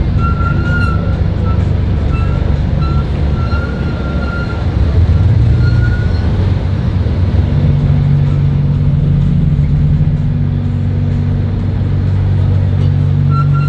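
Car engines running at low revs in street traffic, with a deep steady note that swells about five seconds in and again from about seven and a half seconds on. A thin high tone comes and goes over the first six seconds.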